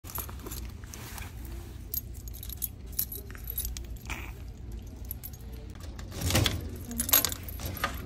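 A bunch of metal keys jangling in a hand, with many small clinks and two louder metallic clatters about six and seven seconds in.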